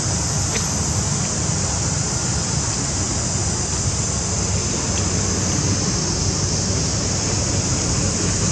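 Steady outdoor background noise: a low rumble like wind on the microphone under a constant high-pitched hiss, with no monkey calls.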